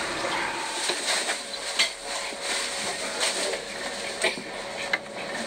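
Funicular cable car running on its track: irregular metallic clicks and clanks over a steady hiss with a faint held tone.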